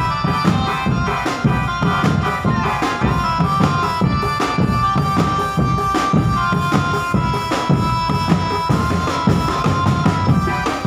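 Live Madurese can macanan drum band playing: fast, dense drumming with bass drum under a held, reedy melody line that steps between a few high notes.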